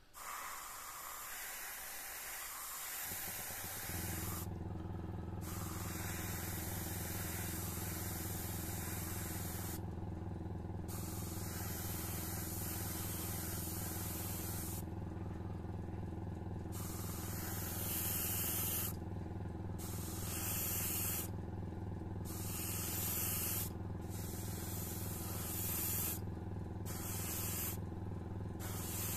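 Airbrush spraying in spurts, its hiss stopping and starting about seven times as the trigger is pressed and released. About four seconds in, an air compressor starts a steady hum beneath it.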